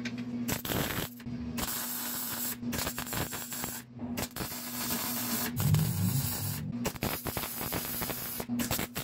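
Small 110-volt welder's arc crackling and hissing in several short runs with brief pauses between them, over a steady low hum, as a new flex pipe is welded into a car's exhaust pipe to seal a leak.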